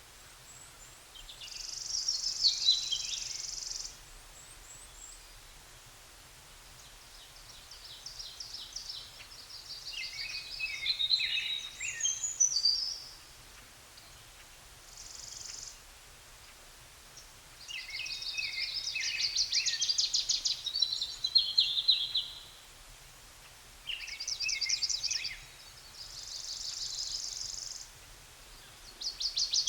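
Songbird singing high-pitched phrases every few seconds, many of them fast trills, with short pauses between them.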